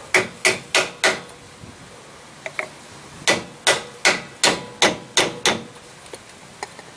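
Hammer blows on a Kent Moore J-23771 axle seal installer, driving a new axle shaft seal into the end of a Ford 7.5-inch rear axle housing. Sharp metallic strikes about three a second: four, a pause with two light taps, then a run of seven, with two faint taps near the end as the seal seats.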